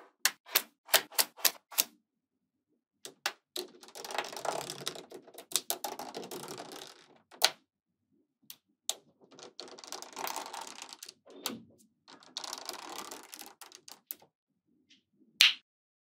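Small neodymium magnetic balls clicking as they snap together: a quick run of sharp clicks, then stretches of dense clattering as strips of balls are pressed into a panel, and one loud snap near the end.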